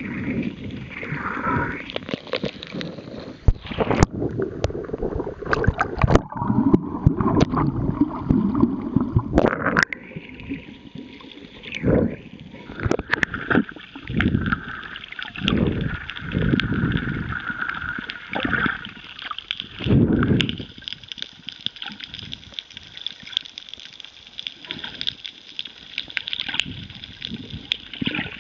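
Underwater water noise around the camera: gurgling bubbles and rushing water, broken by many sharp knocks and clicks and uneven surges.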